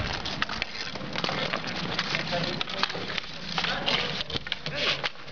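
Ball hockey sticks clacking against the ball, the asphalt and each other, a quick, irregular run of sharp knocks and clicks.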